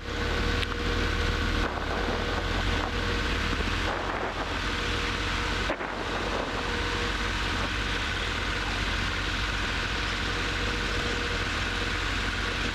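Robin DR400 light aircraft's Lycoming four-cylinder engine and propeller heard from inside the cabin, coming up to full takeoff power at the very start and then running steadily through the takeoff roll.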